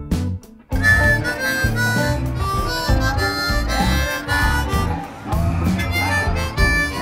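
Blues music led by harmonica, playing held and bending lines over a full band. It comes in after a brief drop in level under a second in.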